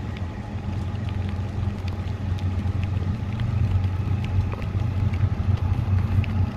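Steady low rumble of approaching diesel freight locomotives, growing slightly louder, with scattered light ticks of raindrops.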